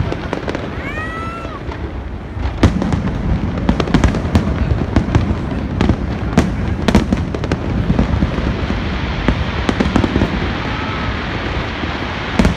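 Fireworks display: a rapid series of sharp bangs and crackles from aerial shells bursting, over a continuous rumble. The bangs grow denser and louder from about two and a half seconds in.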